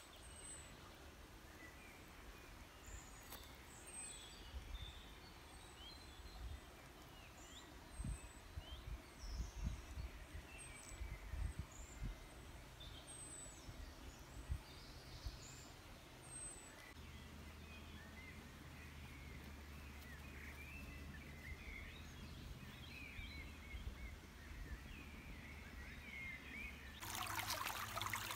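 Woodland birds calling faintly over a low rumble, one repeating a high thin note about once a second. Near the end the sound cuts suddenly to louder running stream water.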